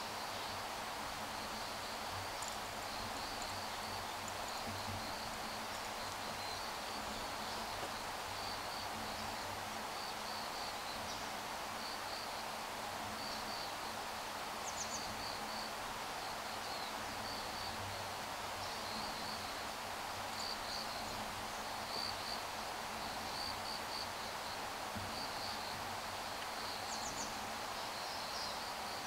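Steady outdoor ambience of a wooded shrine ground: an even hiss with an insect chirping in short repeated pulses throughout, and a few brief high bird chirps.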